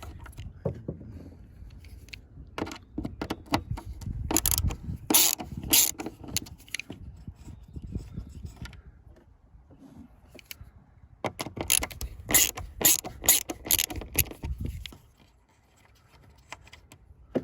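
A screwdriver with a T15 Torx bit backing out the metal screws of a minivan's plastic floor latch: two runs of sharp mechanical clicks and scraping, the second after a quieter pause past the middle.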